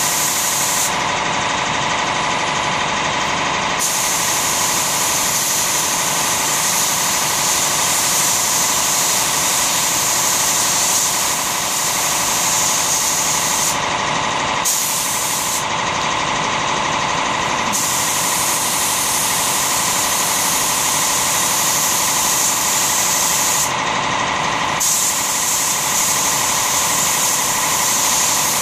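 Compressed-air spray gun with a siphon cup hissing as finish is sprayed onto wood in passes, the hiss cutting back about four times when the trigger is let off, over a steady machine hum.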